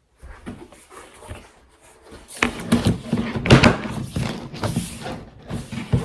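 Storage boxes being handled: faint clicks, then from about two seconds in, louder bumps, knocks and scraping as the boxes are moved and shut.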